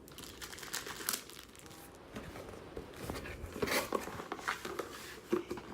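Crinkling and tearing of a courier package's wrapping as it is handled and opened, in irregular crackles that grow busier about halfway through.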